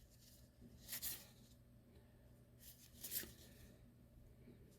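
Faint, brief rustles of trading cards being slid and flipped by hand, twice: about a second in and again a little after three seconds in.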